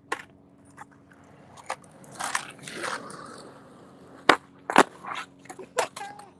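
A small freestyle skateboard being ridden and pushed: several sharp knocks of the deck and wheels on the ground, and a rough scrape about two seconds in.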